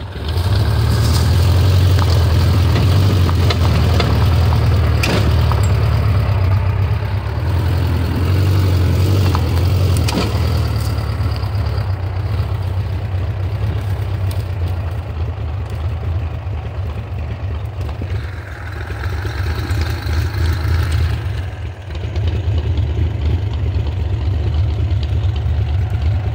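Engine of a small off-road vehicle running steadily as it drives over rough ground, heard from the seat, with a couple of sharp knocks from bumps. The engine sound drops briefly twice about two-thirds of the way through, then picks up again.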